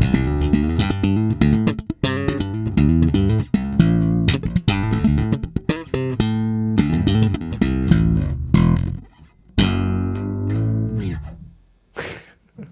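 Spector EuroBolt 4 electric bass with Aguilar PJ pickups, played as an amplified solo line of quick plucked notes. About ten seconds in it lands on a held note that rings and fades out.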